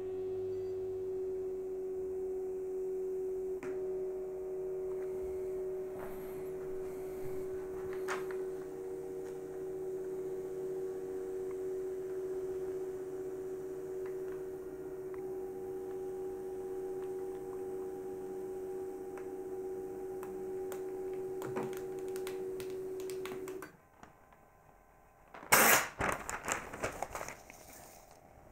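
Chinon DCM-206 image copier's thermal printer running with a steady electric hum while the thermal paper feeds out. The hum stops abruptly about 24 s in. Near the end comes a short, louder spell of paper crackling and rustling as the printout is handled.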